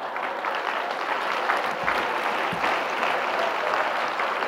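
Audience applauding steadily, the dense patter of many hands clapping.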